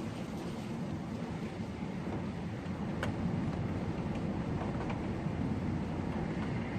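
Gale-force storm wind buffeting the microphone: a low, gusting rumble, with a couple of faint clicks about three and five seconds in.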